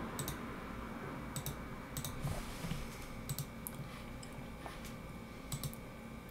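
Computer mouse buttons clicking in quick pairs, about five times, spaced irregularly, over a faint steady room hum.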